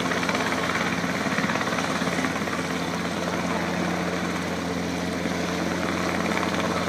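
Robinson R22 Beta II helicopter in flight: a steady, rapid beat of its two-blade rotor over the drone of its piston engine.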